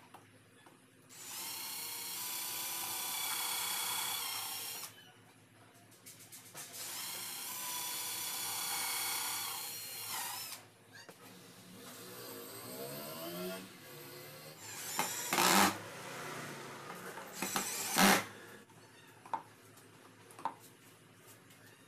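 Cordless drill driving screws into plywood: two runs of about four seconds each, a steady high whine. Later come two loud knocks.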